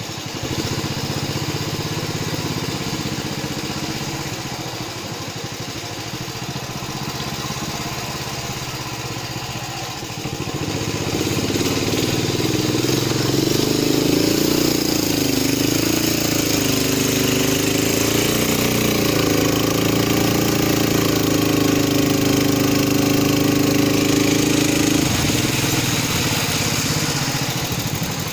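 Long-tail boat engine running, opening up to a louder, higher, steady pitch about ten seconds in and holding there.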